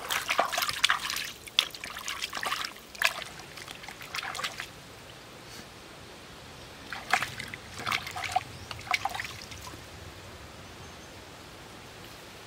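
Shallow creek water splashing and trickling in two spells of short, irregular splashes, over the steady faint hiss of the flowing stream.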